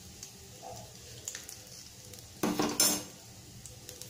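Whole spices crackling faintly in hot oil in an aluminium kadai. About two and a half seconds in, a spatula scrapes and clatters against the metal pan for about half a second with a brief ring; this is the loudest sound.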